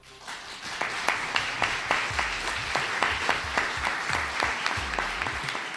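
Audience applauding, breaking out suddenly and keeping up steadily, with individual claps close to the microphone standing out.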